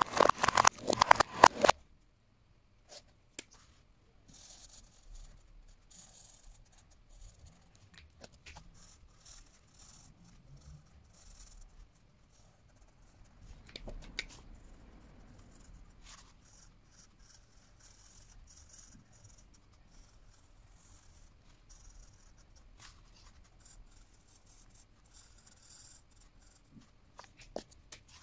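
Felt-tip marker tips scratching faintly across paper in short strokes of colouring, with scattered sharp clicks of plastic markers being put down or handled. It opens with a loud burst lasting under two seconds.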